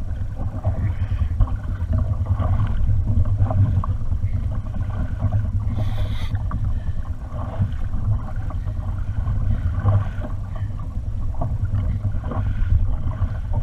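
Sea water lapping and rushing along a plastic kayak hull as the kayak is towed sideways through the chop by a hooked marlin, over a steady low rumble, with a brief splash about six seconds in.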